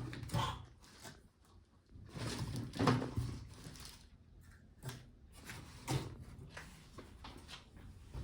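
Box and packaging being handled during an unboxing: a few separate knocks and rustles, the loudest about three seconds in.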